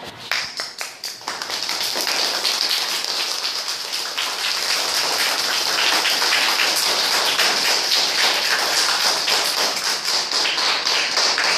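A classroom of children clapping: a few scattered claps at first, thickening within about two seconds into steady applause.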